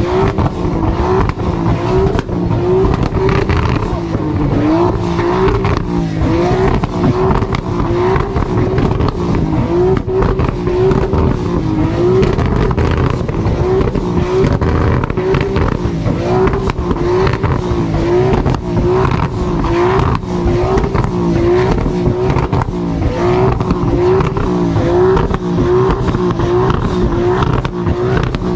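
Loud, steady car engine and exhaust noise, with a tone that wavers evenly about once a second.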